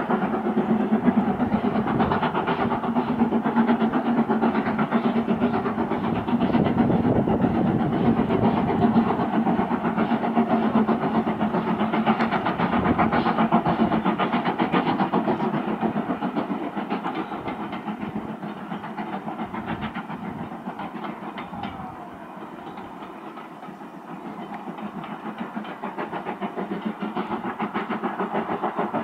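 Steam locomotive working as it hauls a train of coaches, its exhaust beating in a quick, even chuff. The sound fades somewhat about three quarters of the way through and then builds again.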